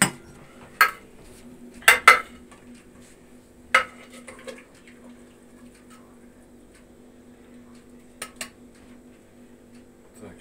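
Metal ladle knocking and scraping against the aluminium pot of an Afghan kazan while stirring soup: a handful of sharp clinks in the first four seconds, then a pause and two quick clinks about eight seconds in, over a steady low hum.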